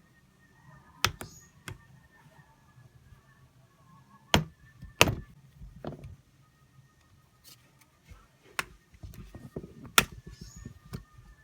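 Scattered sharp clicks and taps of small hand tools and phone parts being handled on a workbench during a smartphone teardown, about seven separate knocks, the loudest about five and ten seconds in.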